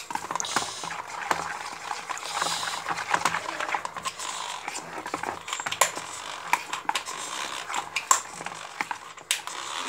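Metal hand whisk beating thick jalebi batter in a plastic bowl: continuous wet churning with irregular clicks of the wires against the bowl, a few sharper knocks in the second half.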